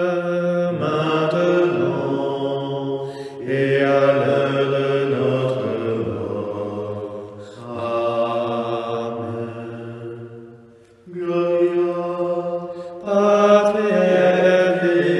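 Men's voices chanting a slow sung prayer in long held notes, phrase by phrase, with a short break about eleven seconds in.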